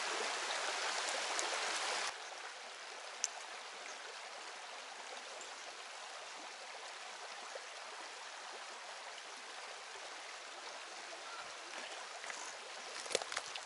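Mountain river rushing over rocks, a steady hiss of running water that drops abruptly in level about two seconds in. A few small clicks near the end.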